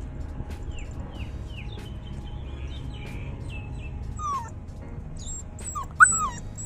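Labrador–golden retriever mix puppy, under two months old, whimpering and yelping in short, high, falling cries. The loudest yelps come about six seconds in.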